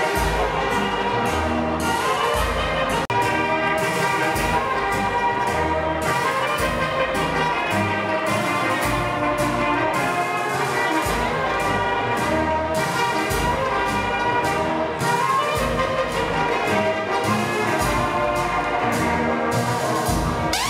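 Music with brass horns, trumpet-like, playing over a bass line.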